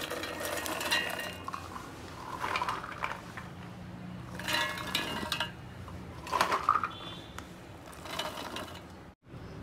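Sweet corn kernels poured in scoopfuls into a stainless steel mixer-grinder jar, rattling and clinking against the steel and the blades, in about five separate pours.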